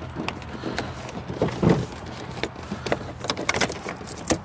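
Light clicks and knocks of plastic door-panel parts and wiring being handled and fitted back into place, with one heavier thump about a second and a half in.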